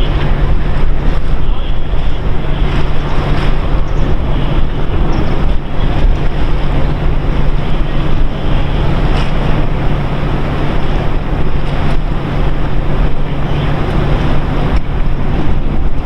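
Loud, steady wind buffeting the microphone at the waterside, with a steady low hum underneath.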